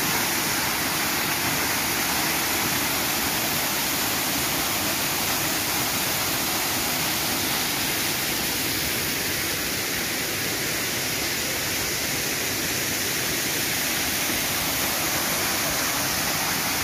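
Waterfall spilling over rocks into a stony stream: a steady rush of falling water.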